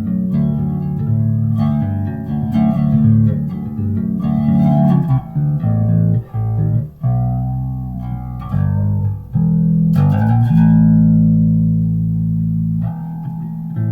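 Electric bass guitar played through a Boss flanger pedal: a run of plucked notes, then a long held note about ten seconds in, with a little jet-like sweep.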